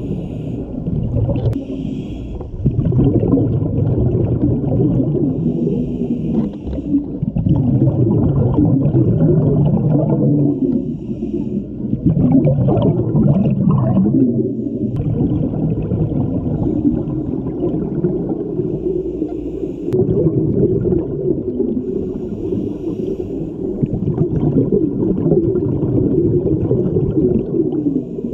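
Scuba regulator breathing heard underwater: a short hiss on each inhaled breath every few seconds, between long rumbling, gurgling rushes of exhaled bubbles.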